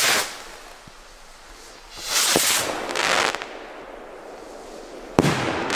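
Pair of firework skyrockets: a hissing whoosh of a launch right at the start, a longer hissing burst about two seconds in, and a single sharp bang about five seconds in with a brief rumbling tail.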